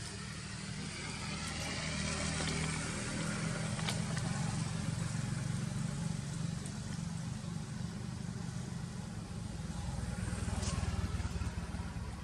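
Low, steady hum of a motor vehicle engine running, swelling a little about two seconds in and again near the end.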